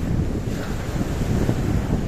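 Wind buffeting the microphone with a low, gusty rumble over the wash of sea waves.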